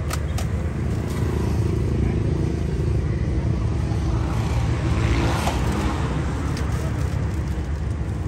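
Steady low rumble of street traffic and vehicle engines, swelling briefly about five seconds in.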